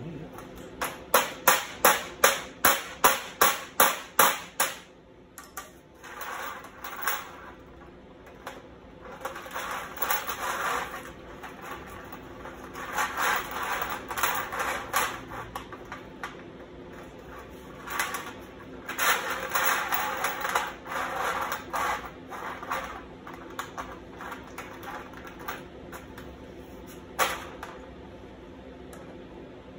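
Steel chain links clinking and scraping on a steel sheet as the chain is worked into shape, with a quick run of about ten sharp metal taps at the start and one more tap near the end.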